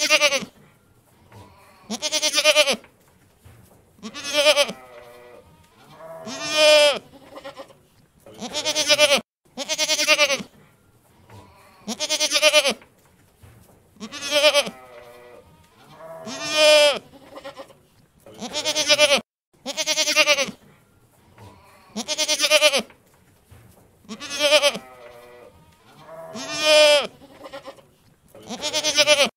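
A goat bleating over and over, about every two seconds: each 'meh' about a second long with a wavering, quavering pitch.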